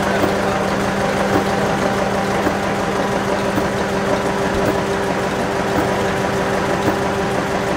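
A restored 1949 Tangye horizontal single-cylinder diesel engine running steadily, a constant hum with a regular beat about once a second.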